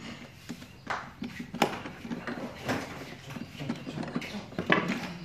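A screwdriver working the terminal screws of a plastic power socket, with scattered clicks and knocks of tool and plastic being handled, the sharpest about a second and a half in and near the end.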